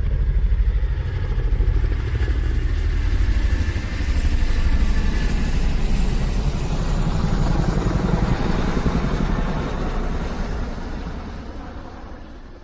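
A motor vehicle engine running with a deep, steady rumble that fades away over the last couple of seconds.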